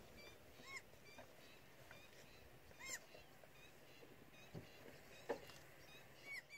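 Faint outdoor quiet broken by a bird's short, arching call notes every second or two, the loudest about three seconds in, with a soft knock about five seconds in.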